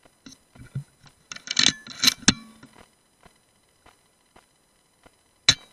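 Metallic clinking and rattling: a quick cluster of sharp clinks and clicks about a second and a half in, then one sharp click near the end.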